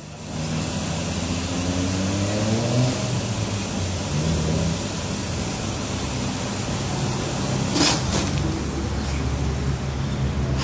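DE450 vacuum sealer's pump running with a steady hum while it draws the air out of a plastic bag before sealing. Its tone climbs over the first few seconds, and two brief sharp sounds come about eight seconds in.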